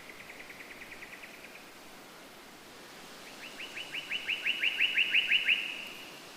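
A bird singing two trills of quick, evenly repeated notes. A faint trill fades out about a second and a half in, then a louder one of about fourteen notes, roughly six a second, starts about three seconds in.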